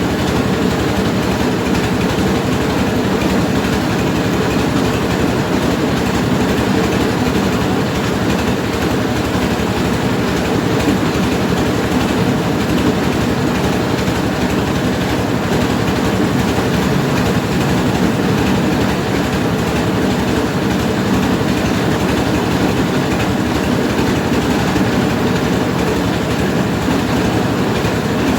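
Mobile rice-milling machine running steadily, its engine and milling gear making a loud, continuous mechanical din.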